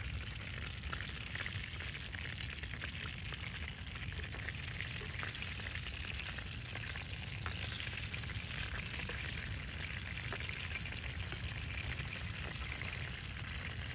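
Pieces of fish frying in hot oil in a small pan over campfire embers: a steady sizzle, with a few light clicks of a fork against the pan.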